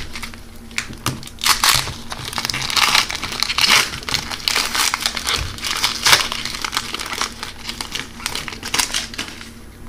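Foil trading-card pack wrapper crinkling and tearing in irregular crackles as it is ripped open and the cards are slid out.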